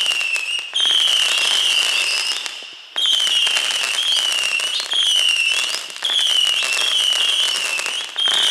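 Consumer firework barrage firing a run of whistling shots: each is a shrill, slightly falling whistle lasting a second or so, over dense crackling, with a new whistle starting every one and a half to two seconds.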